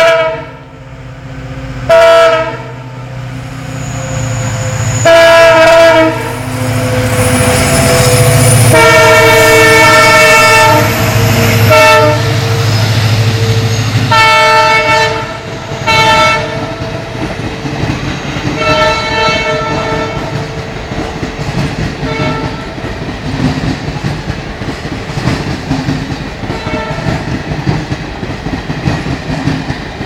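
WDP4 diesel locomotive's multi-tone air horn sounded in a comical string of blasts, mostly short with one held for about four seconds, over the locomotive's engine running as it comes past. From about halfway in, the passenger coaches roll by with a rhythmic clickety-clack of wheels over the rail joints.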